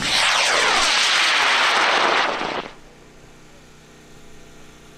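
A high-power rocket's J290 motor ignites and blasts the rocket off the pad with a loud rushing hiss. A falling, sweeping tone runs through it as the rocket climbs. The noise stops abruptly about two and a half seconds in as the motor burns out.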